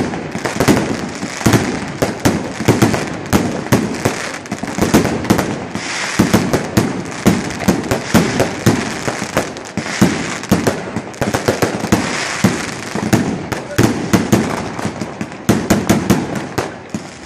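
Xplode Ti-Thunder HDD-02, a 150-shot salute cake, firing in rapid succession. It gives a dense, unbroken string of launches and sharp salute bangs, several a second.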